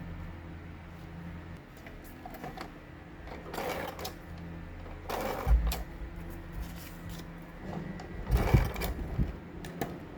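Paper and craft supplies being handled: rustling with a few clicks in three short bursts, over a low steady hum.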